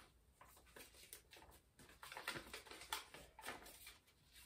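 Faint, irregular rustling of loose school papers being handled and unfolded, with more of it in the second half.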